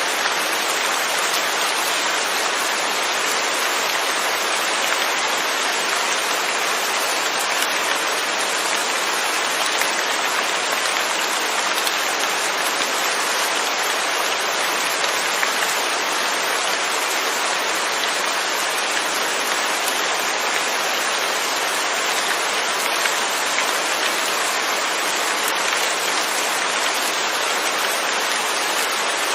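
Steady rain falling without thunder, an even hiss of rain on surfaces.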